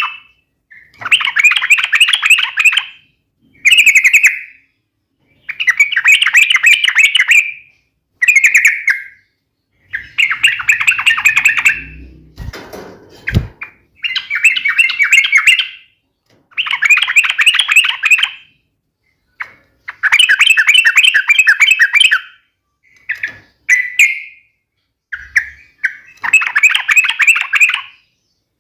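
Yellow-vented bulbul (trucuk) singing its sharp, rapid trilling fighting song ('ropel'), in loud bursts of quick notes repeated every couple of seconds. A few low thuds come about halfway through.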